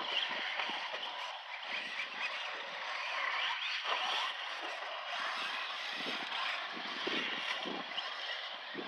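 Traxxas Slash RC short-course truck driving on a dirt track, a steady noisy running sound that swells and eases as it goes.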